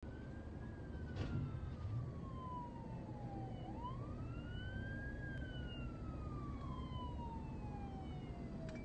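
Police car siren in a slow wail, falling in pitch, sweeping back up about halfway through, then falling again. It is heard from inside a car over a steady low rumble, with a couple of light knocks in the first two seconds.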